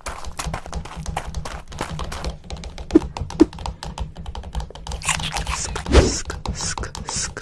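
Rapid, irregular clicking and tapping, with two sharp knocks about three seconds in and a short hiss with a low thud near the end.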